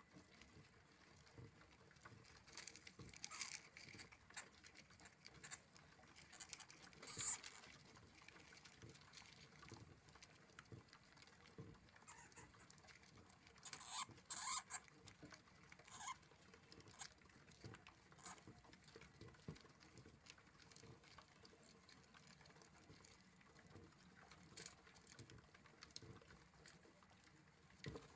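A hamster's small feet pattering and scrabbling on the floor of a clear container as it runs round and round, with a few louder scratching bursts, the loudest about seven and fourteen seconds in.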